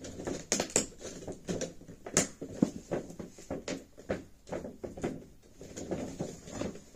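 Hands working at the top flap of a large cardboard Funko Pop box, making irregular taps, scrapes and knocks, the loudest a little over two seconds in.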